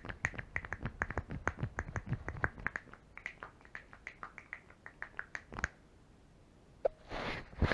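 A rapid, uneven run of light clicks or taps, several a second, thinning out after about three seconds. One heavier thump follows, then a short rustle near the end.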